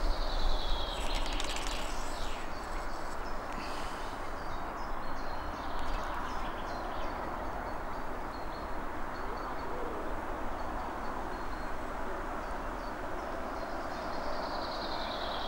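Woodland birds calling over a steady background hiss, with a few short descending whistled notes near the start and again near the end. A brief rustle in the first second or two.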